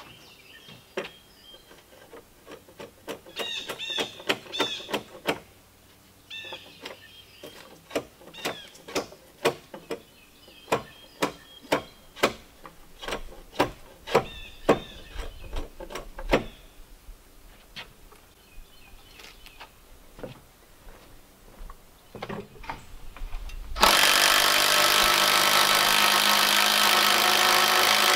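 Hand hammer blows on the timber frame, in irregular runs of about two a second, which stop about 17 s in. About 24 s in an electric drill starts boring into the wooden corner brace and runs loud and steady.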